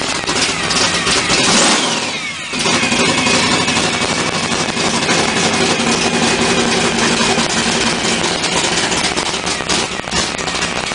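Supercharged Studebaker 289 V8 engine revved briefly; about two seconds in the revs fall away with a falling pitch, then it settles into a steady idle.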